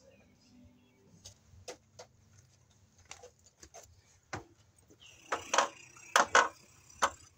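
Footsteps and knocks of a person climbing onto a stepladder: scattered light clicks at first, then several loud, sharp knocks close together near the end.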